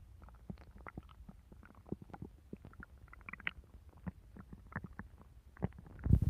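Human stomach gurgling: many short, irregular squelches and pops, with a louder, fuller rumble starting near the end.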